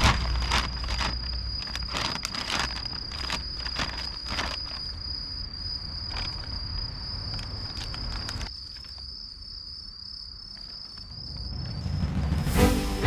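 An insect chirring steadily on one high pitch, over a run of crinkles and taps from a plastic fertilizer sack being handled; the crinkling stops about two-thirds of the way in, and a short rush of noise comes near the end.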